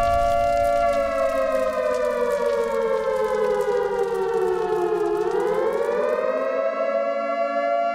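Two-tone siren sound effect: a steady wail that slides down in pitch over about four seconds, swings back up, and holds steady again. Under it a low rumble fades out.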